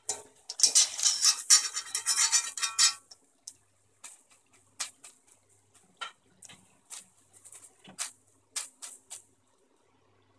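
A wire mesh strainer scraping and rattling against an aluminium kadai as fried french fries are scooped out of the oil, for about three seconds. Then scattered light clicks and taps as the strainer of fries is held and shaken over the pan to drain.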